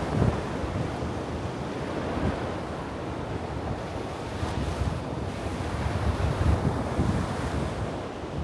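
Ocean surf washing on the beach, with wind buffeting the microphone in gusts that are strongest about six to seven seconds in.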